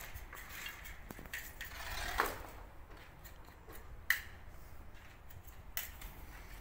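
Small metal hand tool scraping and clicking against a gypsum plaster panel in short, irregular strokes, with two sharper clicks.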